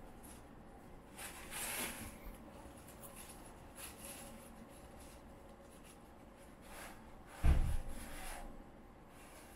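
Tissue paper rustling and a cardboard box scuffing as a cat noses and paws into it. One dull, low thump stands out late on.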